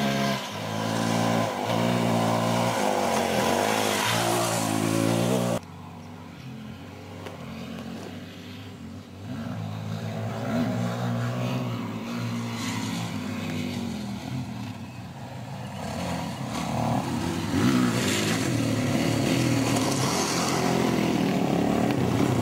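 Dirt bike engines revving and pulling away, their pitch stepping up and down with throttle and gear changes. The sound drops suddenly about five and a half seconds in, then builds back up to loud riding.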